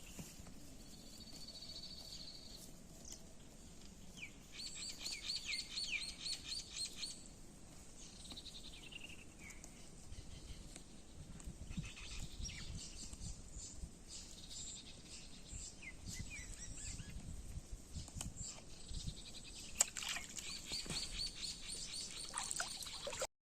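Wild birds singing and calling: fast runs of repeated high chirps about five seconds in and again near the end, with scattered falling notes between them. A low rumble runs through the middle, and a single sharp click comes near the end before the sound cuts off.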